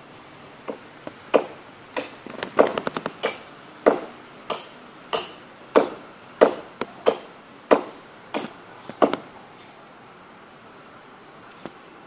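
A blade chopping into a coconut palm: about twenty sharp blows at an uneven pace, quickening briefly in a flurry, then stopping about nine seconds in. Insects chirr steadily underneath.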